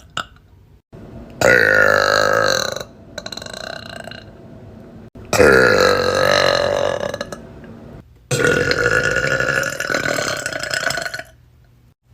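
Three long, loud burps from girls, one after another with short pauses between, the last one the longest.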